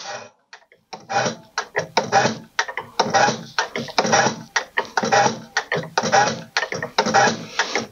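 A diesel injector nozzle on a hand-lever pop tester, an American Bosch ADE type, spraying test oil in a quick run of short hissing bursts, two to three a second, as the lever is pumped. The nozzle is being bled and flushed through with the gauge valve shut.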